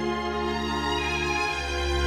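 Background music: a slow, gentle tune of sustained notes, with the bass note changing about one and a half seconds in.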